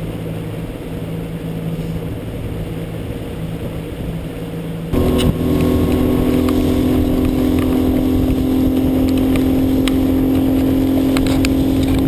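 Boat's outboard motor running at low speed, then about five seconds in abruptly louder with a higher engine note as the boat runs over open water, with scattered knocks from the chop.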